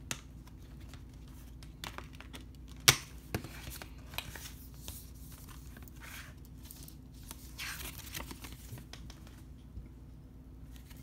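Handling a clear plastic Blu-ray case and its paper booklet: scattered clicks and knocks of the case, the loudest a single sharp click about three seconds in, and paper rustling as the booklet is handled and opened.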